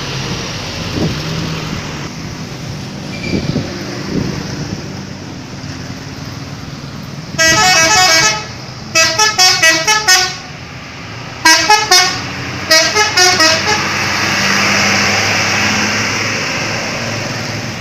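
Indonesian bus 'telolet' horn, a multi-trumpet musical horn, playing a quick tune in four bursts. It opens with one long note about seven seconds in, followed by three runs of short rapid notes, heard over steady street traffic noise.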